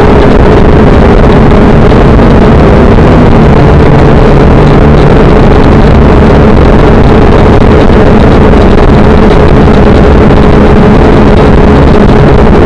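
Electric motors and propellers of a small radio-controlled aircraft carrying the camera, running at a steady speed: a loud, steady buzzing hum over rushing noise, overloading the recording.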